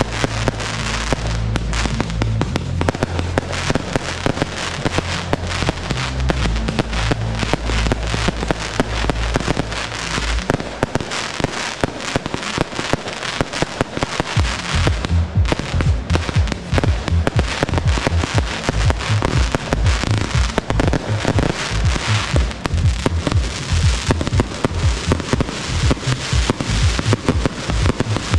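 Professional fireworks display: rapid, continuous volleys of aerial shells and cakes bursting, over a music soundtrack with a bass line. The bass drops out for a few seconds around the middle, then returns with a steady beat.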